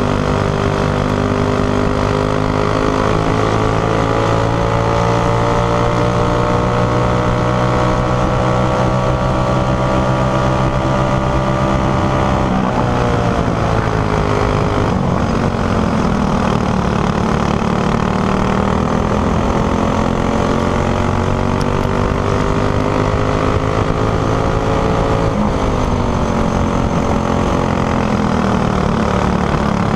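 Racing kart's four-stroke gas engine at full throttle, its pitch climbing slowly along a straight, then dropping sharply about twelve seconds in and again near the end as the driver lifts off for corners, climbing again after each.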